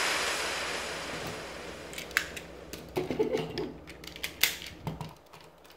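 Hard plastic transforming robot toy parts being handled and fitted together: a scatter of light clicks and knocks, after a hiss that fades away over the first two seconds.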